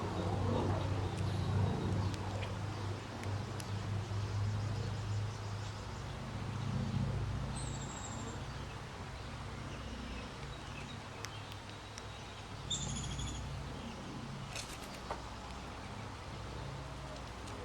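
Wind rumbling on the microphone, with a few short, high bird chirps, one about eight seconds in and a cluster about thirteen seconds in.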